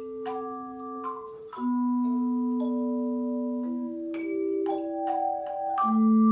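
Tone chimes playing a slow melody: struck notes with a clear pure tone ring on for a second or more and overlap one another, with a loud low note struck near the end.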